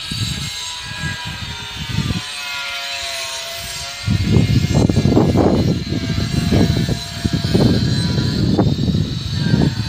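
Wind buffeting the microphone in irregular low rumbling gusts, heavier from about four seconds in, over a faint steady hum.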